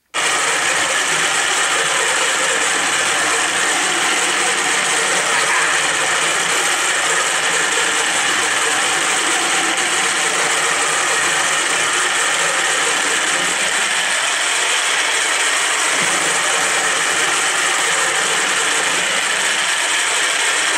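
Battery-powered motor driving the 3D-printed robot leg's plastic gear train. The leg moves slowly with a loud, steady grinding of dry, ungreased gears. The motor switches on abruptly at the start.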